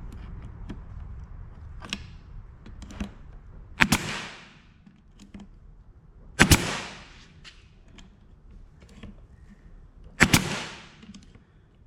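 Brad nailer firing 1-inch brads into wood to tack on the table brace: three sharp shots a few seconds apart, each followed by a short fading hiss, with a few light clicks and knocks of handling between them.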